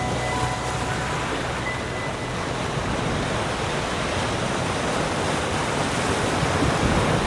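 Ocean surf washing ashore in a continuous rushing hiss, swelling a little near the end.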